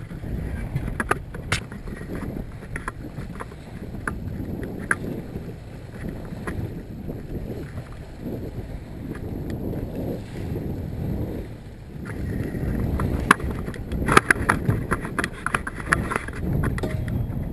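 Water slapping against a small fibreglass open-bow boat's hull on choppy water, with wind on the bow-mounted action camera. Scattered knocks and clicks of footsteps on the deck and hands on the camera mount grow more frequent near the end as the camera is handled.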